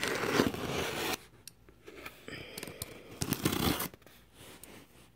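Scissors slicing along the packing tape on a cardboard shipping box: a long scratchy cut in the first second, then shorter strokes with pauses between.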